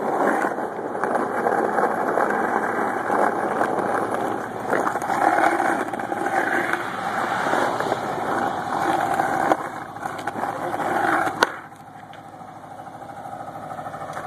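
Engine of a small Caterpillar CB-224C double-drum asphalt roller running loud and rough as it rolls over a road patch, dropping suddenly to a quieter steady hum about eleven seconds in.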